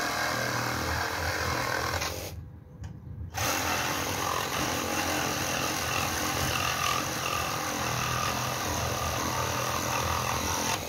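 Cordless battery saw cutting through steel nails with its blade, its motor running loud and steady. It cuts out for about a second around two seconds in, then runs and cuts again.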